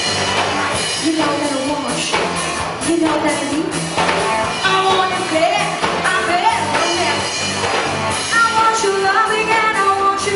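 Live pop-rock band playing: a singer's voice carries the melody over drums, bass, electric guitar and keyboards.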